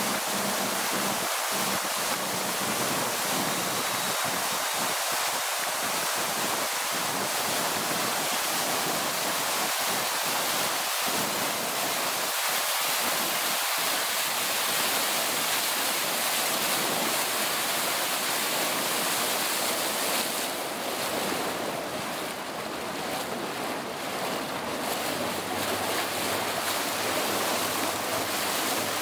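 Steady rush of wind on the microphone and water streaming past the hull and wake of a motorboat running at speed, easing slightly about two-thirds of the way through.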